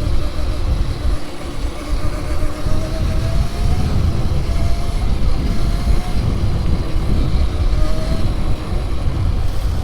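A 48-volt modded Razor electric dirt bike being ridden: a loud low rumble of riding noise, with a faint electric motor whine that rises and falls in pitch.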